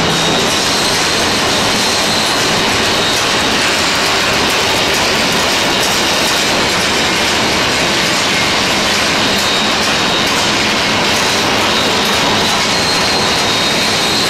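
Automatic pillow-type packaging machine running steadily: a loud, even mechanical noise with a thin high tone over it.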